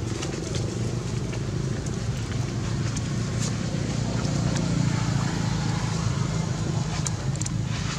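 A steady low motor hum, with a few short sharp sounds, one about three and a half seconds in and several near the end.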